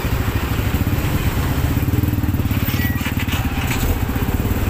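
Motorcycle engine running steadily at low speed in slow traffic: a low, pulsing rumble.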